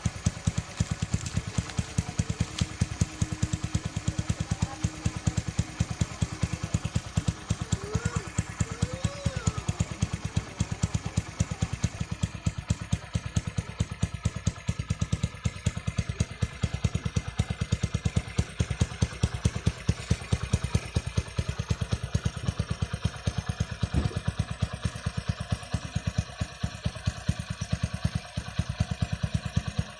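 Bajaj CT100 motorcycle's single-cylinder four-stroke engine idling steadily through its stock exhaust pipe, an even train of exhaust pulses.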